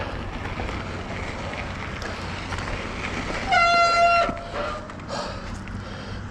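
Mountain bike disc brakes squealing in one loud, steady honk lasting just under a second, about halfway through, over the steady rumble of riding on the trail.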